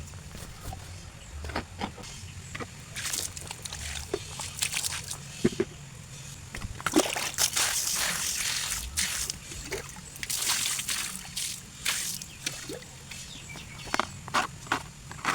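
Water sloshing and splashing with irregular bursts of scrubbing and short knocks, as table fan parts are washed by hand.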